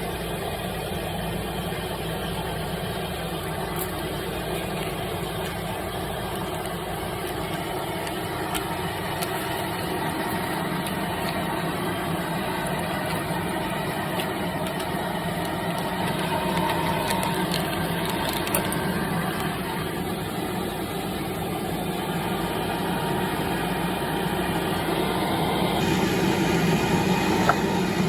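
Kyungdong Navien produce dryer running with a steady mechanical hum, growing slightly louder in the last few seconds.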